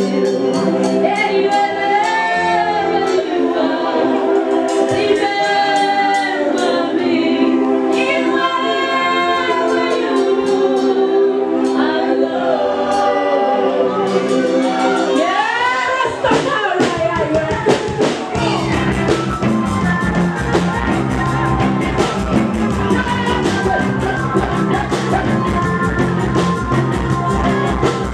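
Reggae band playing live, with sung vocals over sustained keyboard-like chords for the first half; after a sweeping glide about two-thirds of the way in, the bass and drums come in with a steady beat.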